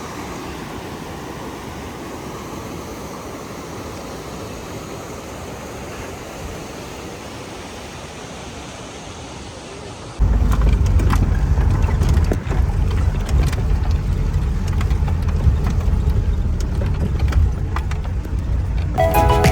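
Jeep riding a rough mountain road: a steady rumble of engine and road noise, which jumps at a cut about halfway through to a much louder low rumble with scattered knocks and rattles.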